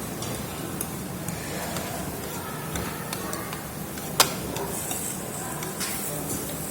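Restaurant table-side noise: a steady hum and hiss with scattered light clicks of utensils and tableware, and one sharp click about four seconds in. Faint voices sit underneath.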